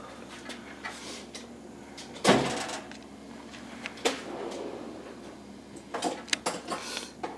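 Hands working around the wiring of the electric cooling fans in a car's engine bay: scattered clicks and rustles, with one louder knock about two seconds in and a quick run of clicks near the end.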